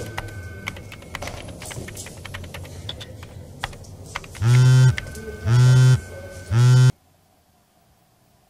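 Typing on a laptop keyboard, a quick run of light key clicks over a low hum. About four seconds in, a mobile phone buzzes three times, about half a second each and a second apart, as an incoming call vibrates it on the desk.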